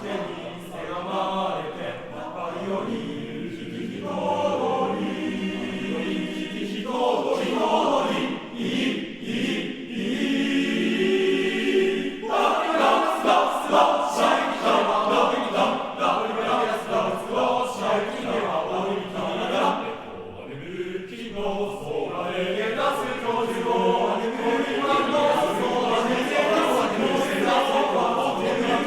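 Unaccompanied men's choir singing in several parts, with short breaks between phrases about 3 s, 7 s and 20 s in.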